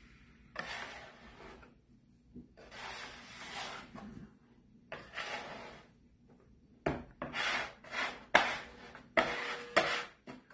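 Metal dough scraper scraping across a wooden pastry board, with potato and ricotta dough being worked under the hands. Three longer scrapes come first, then a quicker run of sharper scrapes in the last few seconds.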